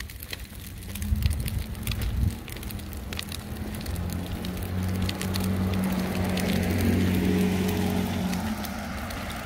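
Wheels of a pushed stroller rolling over asphalt, with a gritty crackle of small ticks and a low steady hum that grows louder in the middle and fades near the end.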